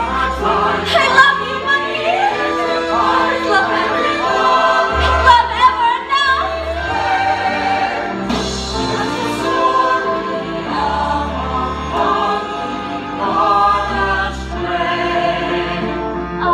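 A stage cast singing together in chorus over instrumental accompaniment: a show tune from a musical.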